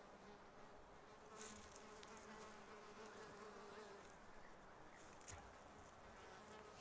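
Near silence: a faint steady hum under hiss, with a couple of soft ticks.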